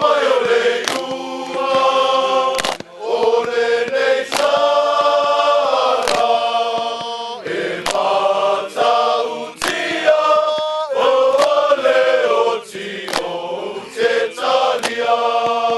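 A group of Samoan soldiers singing in chorus, chanting in held, sustained phrases with brief breaks between them. Sharp percussive strikes punctuate the singing every second or two.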